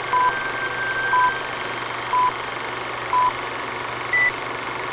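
Film-leader countdown sound effect over a steady hiss. A short beep sounds about once a second, four at the same pitch, then a fifth higher beep near the end.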